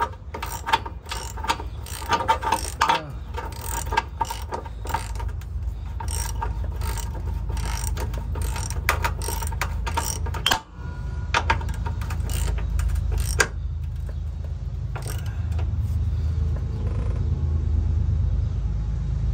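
Hand socket ratchet wrench clicking in quick, uneven runs as its handle is swung back and forth on a bolt; the clicking mostly stops about 13 seconds in, with a couple of single clicks after. A steady low hum runs underneath.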